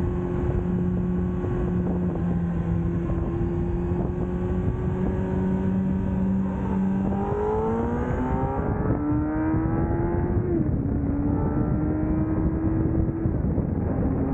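Kawasaki ZX-10R's 1000cc inline-four engine running at steady revs in first gear, then revving up from about seven seconds in. The pitch drops sharply at about ten and a half seconds as it shifts into second gear, then holds steady. A constant rushing noise runs underneath.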